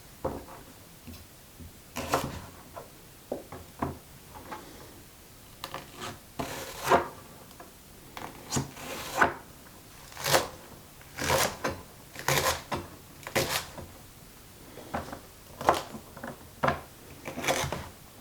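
Kitchen knife dicing leek and celery sticks on a cutting board: uneven sharp chops, sometimes two or three in quick succession, with short pauses between.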